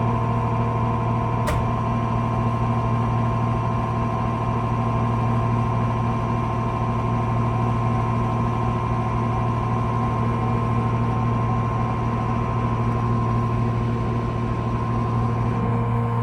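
JR 205 series electric train giving off a loud, steady hum of several constant tones, the deepest one strongest, with a single sharp click about a second and a half in. It is an unusual noise whose cause the uploader does not know.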